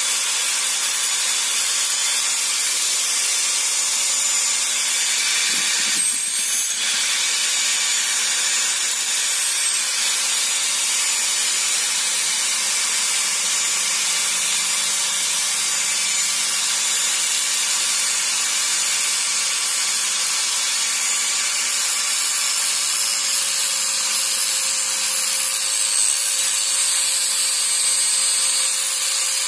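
Handheld electric angle grinder running steadily with a constant motor whine while its disc grinds a small metal part.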